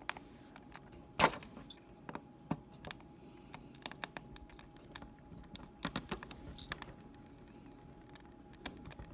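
Scattered sharp plastic clicks and small cracks as a thin PLA print is peeled off a Lego build platform, with Lego pieces pulling loose with it. The loudest click comes about a second in, and there is a cluster of clicks around the middle.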